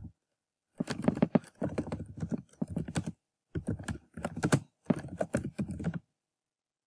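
Typing on a computer keyboard: runs of quick keystroke clicks in short bursts with brief pauses between words, stopping about a second before the end.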